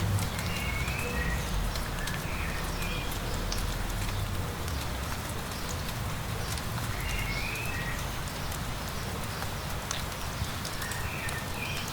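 Steady light rain with scattered raindrop ticks, and a low rumble underneath. A songbird gives short chirping phrases four times.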